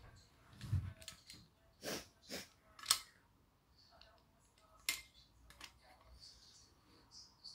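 Plastic parts of a 1976 toy USS Enterprise clicking and knocking as they are handled and pushed together: a soft thump about a second in, then a scattering of sharp clicks, the loudest about three seconds in.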